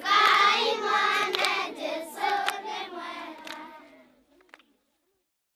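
A group of children singing together, with a few sharp claps, fading out after about four seconds.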